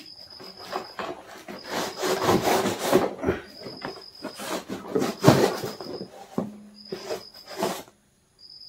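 A large knife sawing and scraping through the tape and cardboard of a shipping box, in several uneven strokes.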